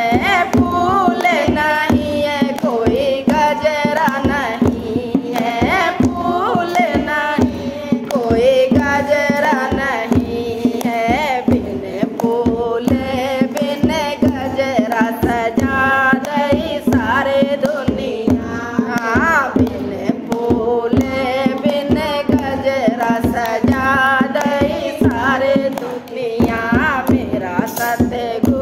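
A group of women singing a Hindi devotional bhajan together, with hand-clapping and a steady percussive beat keeping time.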